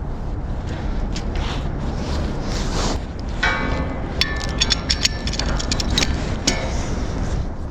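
Wind and road rumble from a fixed-gear bike on the move. From about three and a half to seven seconds in come a run of high ringing tones and sharp clicks.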